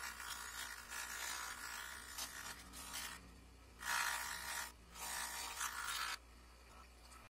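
A small electric tool working against a surface in bursts, pausing about three seconds in and again briefly about five seconds in, then stopping about six seconds in.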